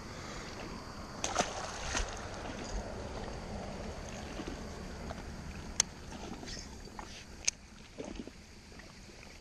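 Water sloshing and splashing beside a small fishing boat, busiest in the first few seconds as a caught bass is let go, with a few sharp clicks and knocks from handling the rod and baitcasting reel.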